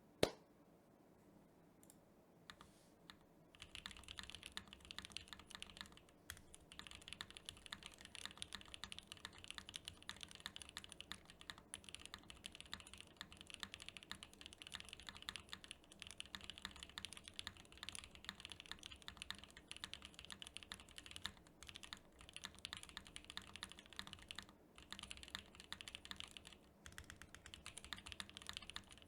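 Typing on a Venn by Gok custom mechanical keyboard with lubed Gateron Cream Soda linear switches, a polycarbonate plate and CRP keycaps, giving a deep-sounding clack. After one sharp click at the start and a few scattered keystrokes, steady fast typing begins about four seconds in, with a few short pauses.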